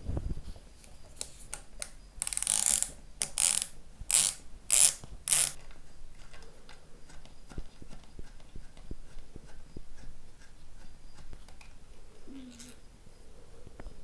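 Ratcheting screwdriver backing out a bass bridge saddle's slightly corroded intonation screw, in a run of about five rasping ratchet strokes. After that come light clicks of the small metal screw, spring and saddle being handled.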